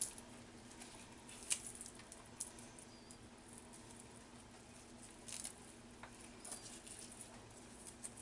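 Faint, scattered rustles and light clicks of hands tearing basil leaves and placing them on a lasagna in a disposable aluminium foil pan, over a low steady hum.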